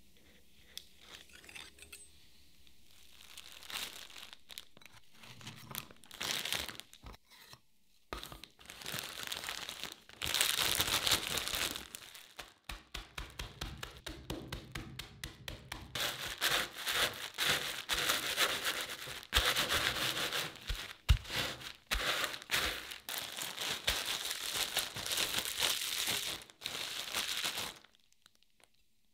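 Plastic bag crinkling and rustling as cookies are crushed into crumbs inside it, a dense crackling with sharp crunchy clicks. It starts sparsely a few seconds in, thickens, and stops suddenly just before the end.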